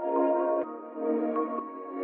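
Ambient background music: held chords that change every second or so.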